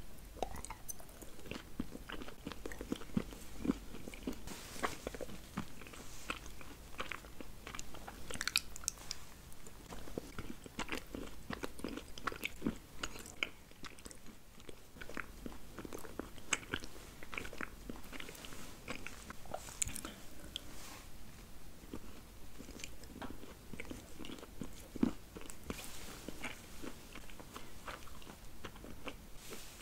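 Close-miked chewing and crunching of chocolate balls, a stream of irregular short crunches.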